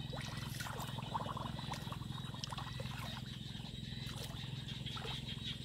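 Hands splashing and sloshing through shallow muddy water, with short scattered splashes over a steady low drone.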